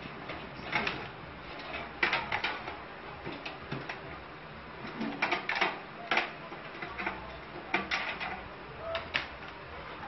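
Metal clicks and knocks of a power supply unit being handled and fitted into a steel desktop computer case, coming in short irregular clusters every second or two.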